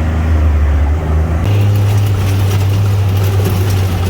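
UTV engine running under way with a steady, loud drone; about a second and a half in, the engine note steps up and a rougher rushing noise joins, as it pulls harder.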